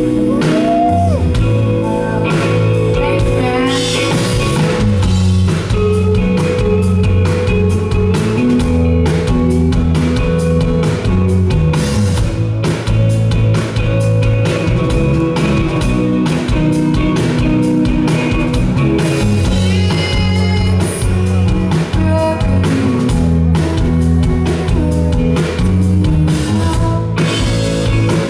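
Live rock band playing: electric guitar, bass guitar and drum kit, with a woman singing in places.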